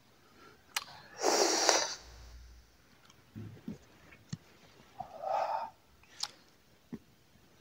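Cigarette smoker's breath: a loud, breathy puff about a second in and a softer one around five seconds in, with a few small mouth clicks between them.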